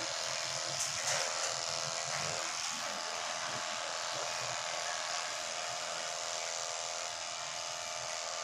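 Electric pet grooming clipper running with a steady buzz while trimming the fur on a dog's paw.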